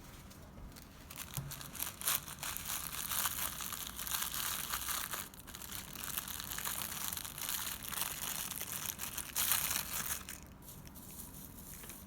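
Slime being squeezed and worked by hand, making a run of irregular small crackles and pops that ease off near the end.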